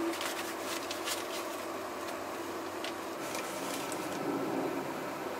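Steady background hum with a few light clicks and taps as ingredient containers are handled over a bowl of flour.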